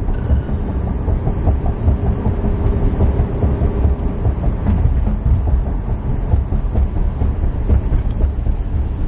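Road noise inside a moving car's cabin: a steady low rumble of tyres and engine while driving.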